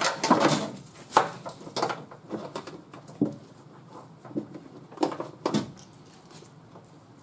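A plastic wiring-harness clip squeezed together and popped out of a car door's inner panel: a run of irregular plastic clicks and knocks as the clip and harness are handled.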